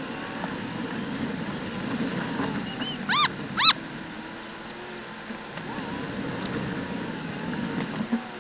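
Two short, shrill yelps about half a second apart, typical of a herding dog working cattle, over the low hum of a vehicle engine idling.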